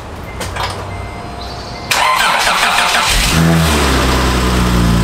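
Acura TL's V6 engine being started: the starter cranks briefly about two seconds in, then the engine catches and settles into a steady idle.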